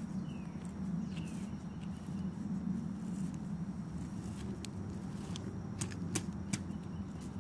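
Several sharp knocks in the second half as a potato is beaten into the muzzle end of a homemade potato gun's plastic pipe barrel, over a steady low hum.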